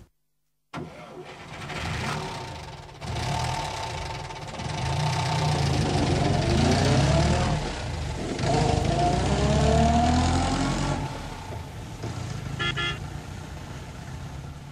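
An engine starts up and runs up, its pitch rising in repeated glides as it grows louder, then fades away near the end. A short beep sounds about two-thirds of the way in.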